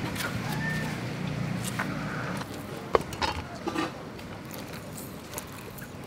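A metal spoon clinking against a glass bowl of liquid sauce as it is stirred: one sharp clink about halfway through, then a few softer knocks.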